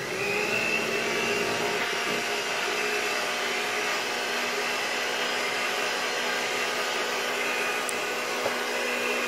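Electric hand mixer switching on at low speed and running at a steady, even pitch, its beaters working through creamed butter, sugar and egg until combined.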